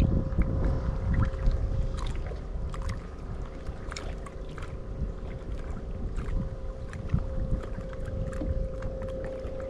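A bow-mounted electric trolling motor keeps a small jon boat in place with a steady high hum. Water laps against the hull, wind rumbles on the microphone, and now and then there are light clicks and knocks.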